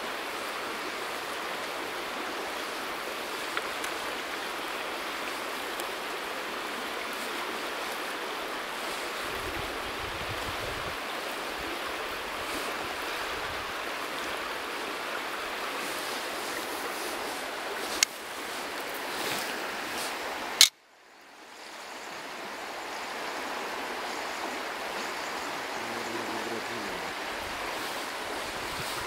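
Steady rush of a shallow river flowing over stones. Two sharp clicks about two-thirds of the way through; after the second, the water sound cuts out for a moment and swells back over a couple of seconds.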